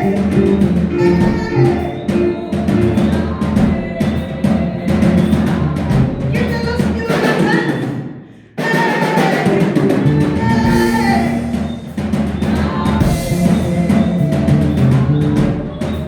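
Live praise-break music: a drum kit keeps a steady beat under voices singing. The music dips and drops out for about half a second a little past halfway, then comes straight back in.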